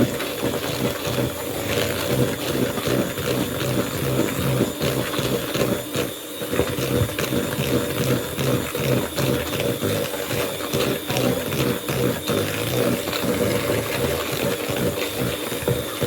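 Electric mixer running steadily, beating eggs, margarine and sugar into a cake batter, with a fast rattle of the beaters in the bowl; it dips briefly about six seconds in.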